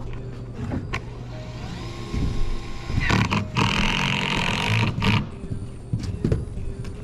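An engine running steadily with a low hum, scattered knocks, and a louder, rougher stretch of about two seconds in the middle.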